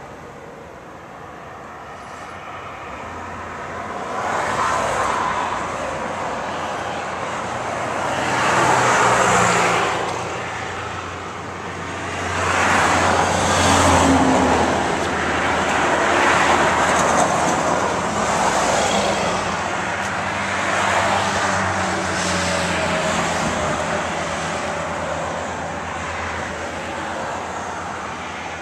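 Road traffic: several vehicles pass one after another, each rising and fading over a couple of seconds, over a low steady hum.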